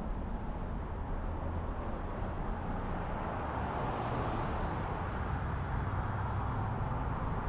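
Steady car road noise: tyres and engine running at road speed, swelling slightly about four seconds in.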